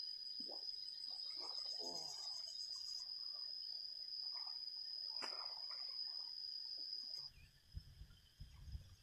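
Insects droning: a steady high-pitched buzz that cuts off suddenly about seven seconds in. A few low, muffled thumps follow near the end.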